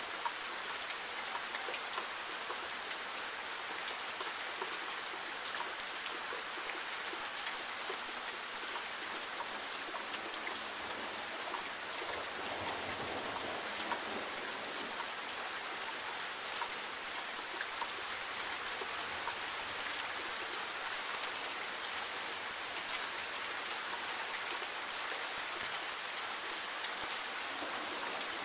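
Steady rain falling: an even hiss made up of countless small drop hits, holding constant throughout.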